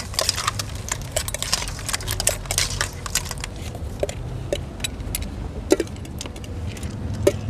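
Utensils clattering and clinking against bowls and containers while a Thai spicy salad (yum) is mixed and served. A rapid run of small clicks for the first few seconds thins out into a few louder clinks, over a steady low hum.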